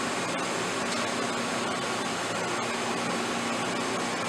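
Racer HB-110CB CNC horizontal boring mill running under power, its spindle turning: a steady whirring hum with a few faint steady tones.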